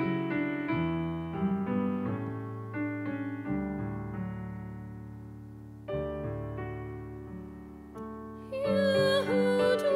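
Yamaha CP electric stage piano playing the introduction to the responsorial psalm: a melody over chords, with long held chords that fade away. About eight and a half seconds in, girls' voices come in singing with the piano.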